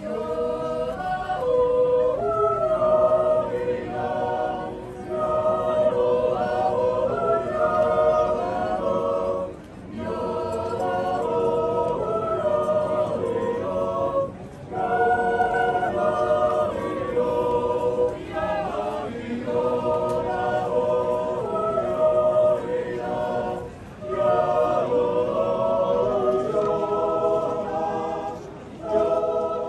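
A large Swiss yodel choir singing a cappella in sustained chords, in long held phrases with short breaks between them.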